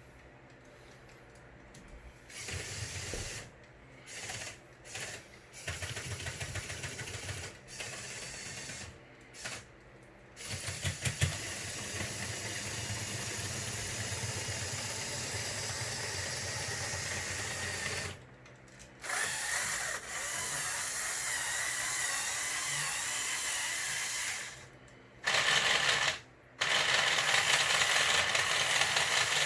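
Small electric motors and plastic gear trains of a motorized Lego Technic excavator model whirring. There are several short runs at first, then longer steady runs, each stopping briefly before the next. A higher whine comes in near the end.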